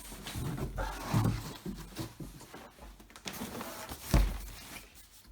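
Cardboard box and packaging being handled as a unit is worked out of a tight-fitting box: irregular rustling and scraping with small knocks, and one sharp thump about four seconds in.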